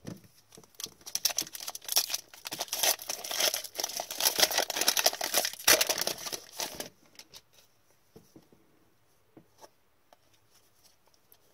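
Foil trading-card pack crinkling and tearing open in gloved hands, a dense crackle lasting about seven seconds. After that only a few faint clicks as the cards are handled.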